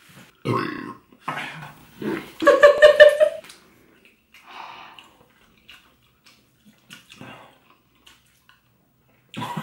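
A person belching loudly: short belches about half a second and a second and a half in, then a long drawn-out belch from about two to three and a half seconds in. Fainter sounds follow, and another belch comes near the end.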